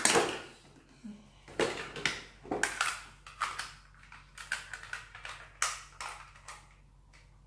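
Hard plastic toy parts clicking and clacking as armor pieces are handled and pressed onto an Armor-Up Baymax 2.0 action figure. It is a string of irregular sharp clacks, sometimes two or three close together, with the loudest right at the start.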